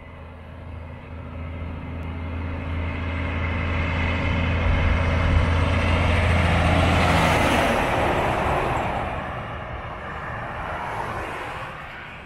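Heavy truck driving past. A deep, steady engine note builds as it approaches, then tyre and road noise peaks about seven seconds in and falls away in pitch as it goes off.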